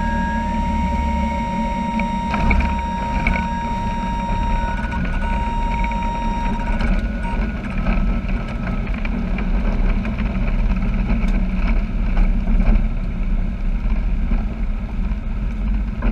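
Engine and propeller of a light single-engine airplane droning steadily, heard from inside the cabin. A steady high tone sounds over the drone for the first several seconds and then stops.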